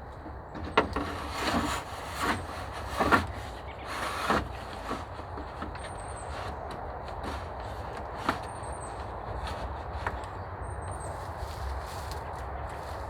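Wooden sticks knocking and scraping against each other for the first few seconds as shelter-wall timber is handled, then a few single knocks over a steady low outdoor background with several faint, short, high chirps.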